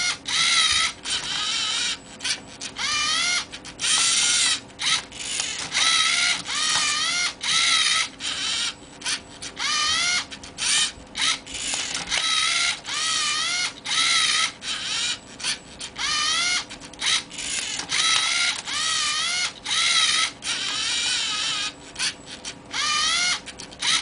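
Lego Mindstorms NXT servo motors whining in many short runs, the pitch wavering as each starts and stops, with clicks between runs, as the robot's arms flip, rotate and turn a Rubik's Cube.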